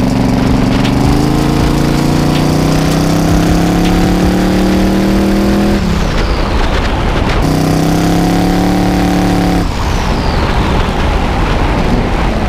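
Turbocharged V8 of a Pontiac Trans Am WS6 accelerating on the road, its note climbing slowly in pitch. The throttle closes twice, about six and about ten seconds in, and each time a high turbo whistle falls away.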